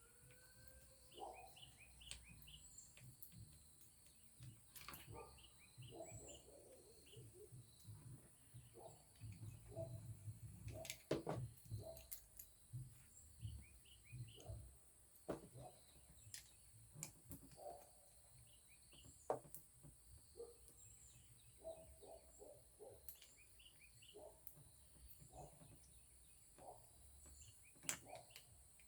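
Faint, irregular clicks and knocks of a socket wrench working the 10 mm clamp bolt out of an ATV's handlebar clutch perch, with a few sharper taps, over a steady faint hiss and a few outdoor chirps.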